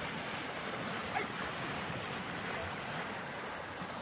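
Steady rush of fast-flowing water churning along a concrete canal.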